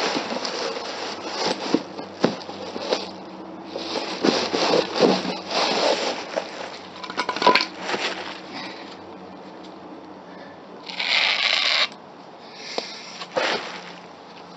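Hands handling materials at a cement patch repair: rustling and scraping in irregular bursts with scattered clicks and knocks. The loudest stretch is a rustling burst about eleven seconds in.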